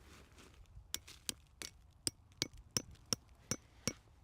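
Light metallic tapping, about three sharp strikes a second, starting about a second in, each with a brief high ring.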